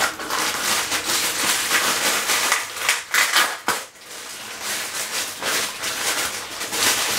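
Grey plastic mailing bag crinkling and crackling as it is handled and pulled open by hand, with a brief lull about four seconds in.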